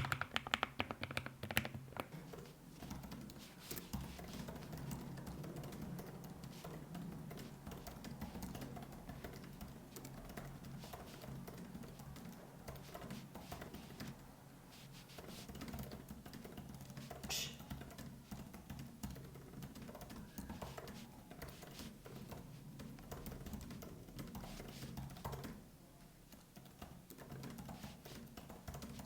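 Continuous typing on a computer keyboard: a steady run of light key clicks, with faint music underneath.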